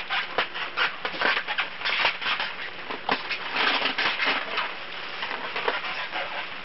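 Plastic crinkling and rustling in many quick, irregular crackles, like a black plastic garbage bag worn as a cape rubbing as the child moves.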